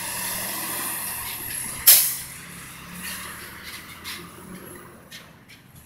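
Semi truck pulling a tanker trailer driving off across a railroad crossing, its diesel engine running, with a sudden loud burst about two seconds in, the loudest sound here.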